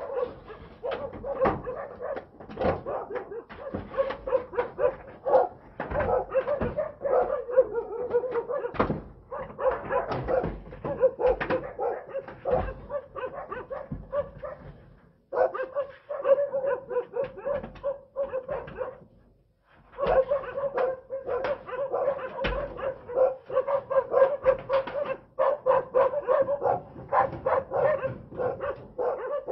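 A dog barking rapidly and without let-up, several barks a second, alarm barking at a bear at the shed. The barking breaks off briefly twice about halfway through.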